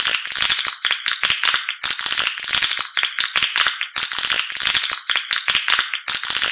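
Swiftlet lure call, rapid dry chittering and rattling twitters in bursts of about two seconds with short breaks between them. This is the kind of recording played from swiftlet houses to draw edible-nest swiftlets in to roost and nest.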